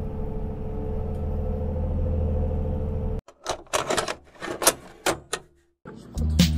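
Steady low drone of a moving vehicle heard from inside its cabin, cutting off abruptly about three seconds in; then a quick run of sharp plastic clicks and crackles as a clear plastic cake container is handled. Music starts just before the end.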